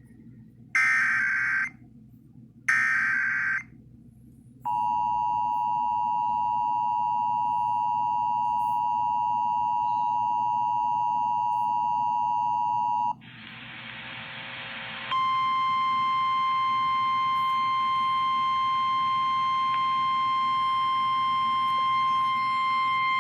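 Emergency Alert System activation: the last two of three short screeching SAME digital header bursts, then the EAS two-tone attention signal held steady for about eight seconds. About thirteen seconds in it gives way to two seconds of static hiss, and then a single steady alert tone of the kind NOAA Weather Radio uses sounds to the end.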